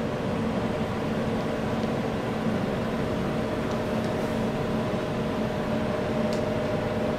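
Steady mechanical hum with a few constant tones.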